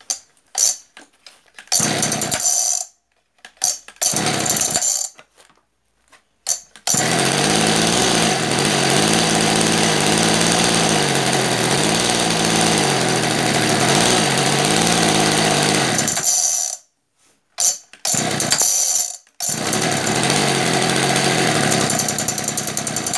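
Kawasaki TF24 two-stroke brush-cutter engine, freshly fitted with a new carburettor, catching in several short bursts that die out, then running for about nine seconds with its speed rising and falling, stalling, and catching again to run near the end. It is being started without the choke pulled.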